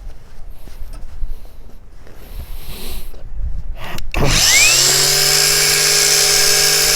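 Cordless brushless angle grinder (Parkside PWSAP 20-Li C3) switched on after a few seconds of quiet handling knocks. About four seconds in it spins up over less than a second with its soft start, its pitch rising, then runs steadily at no-load speed with a steady whine.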